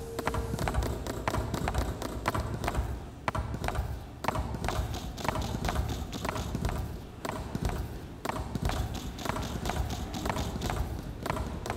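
Milking machine pulsators clicking in several overlapping rhythms, many sharp clicks a second, over a low steady rumble from the vacuum system.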